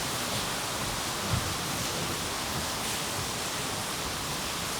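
Steady background hiss of the hall recording, with one soft low thump about a second and a half in.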